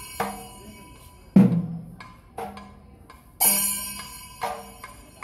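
Slow Kerala temple percussion: deep drum strokes alternate with loud ringing metallic clashes, and lighter strokes fall between them. A loud drum stroke comes about a second and a half in, and a metallic clash about two seconds later.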